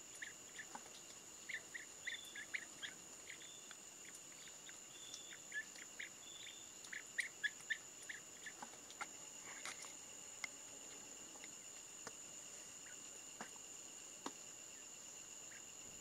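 Quiet tropical forest ambience: a steady high insect drone at two pitches, with runs of short chirps and a few soft clicks, mostly in the first half.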